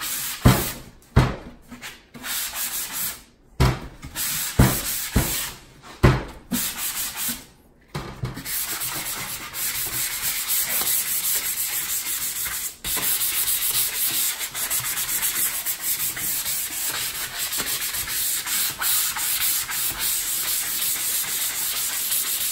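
Sandpaper rubbed by hand over a stained wooden cabinet door, scuffing off the old finish so paint will bond. For the first several seconds it comes in short, uneven strokes with a few louder thumps, then settles into steady, fast rubbing.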